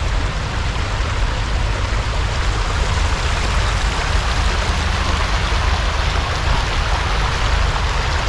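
Water of a shallow man-made stream rushing over rocks and pebbles: a steady, even rush with a deep rumble underneath.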